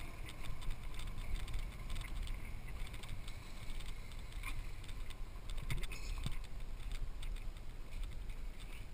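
Riding noise from a Yamaha Vino 125 scooter on a bumpy dirt and gravel track: a steady low rumble of wind and road noise on the mounted camera, with scattered clicks and knocks from the gravel and bumps.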